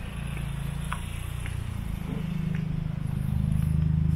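A motor engine running steadily, growing louder over the seconds.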